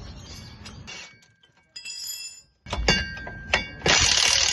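Metal tools and parts clinking under a car, with a ringing metallic tone, a hard thunk about three seconds in and a loud rattling burst near the end.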